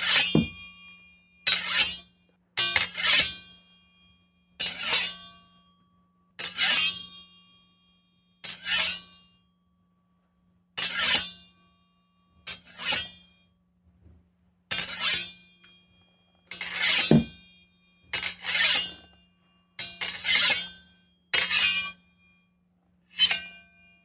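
A series of about fifteen swords being drawn from their scabbards, one every second or two. Each is a short bright metal scrape that rings on and fades, with a faint steady hum underneath.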